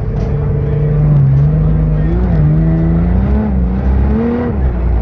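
Sand car engine running under load, its revs rising and falling several times as it drives across the dunes.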